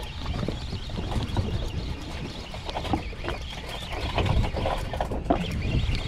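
Steady low rumble with wind and water noise on a boat at sea, broken by irregular knocks and clicks.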